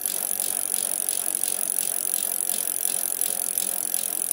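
Mountain bike ridden on a trail: a steady hiss of tyre and rolling noise with a rattle and faint ticks about four a second.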